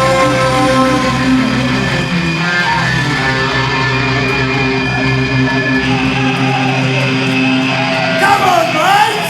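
Live punk rock band playing, with electric guitars holding loud sustained chords. A voice shouts over them near the end.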